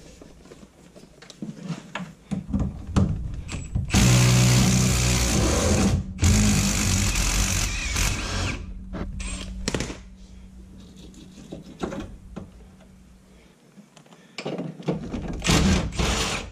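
Cordless impact wrench hammering as it breaks loose and runs off the rear sway bar's end-link bolts: two long runs about four and six seconds in, then a short burst near the end.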